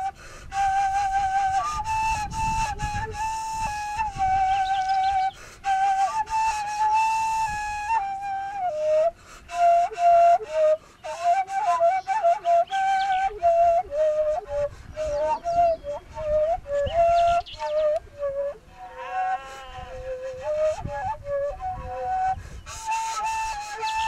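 Background music: a solo flute-like wind instrument playing a slow, wavering, ornamented melody over a soft low accompaniment.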